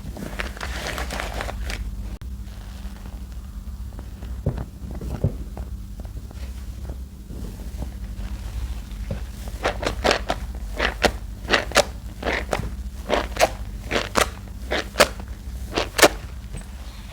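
Hands kneading and squeezing a thick laundry-detergent soap paste, making wet squelches and smacks. From about ten seconds in comes a run of sharp squishes, roughly two a second, over a steady low hum.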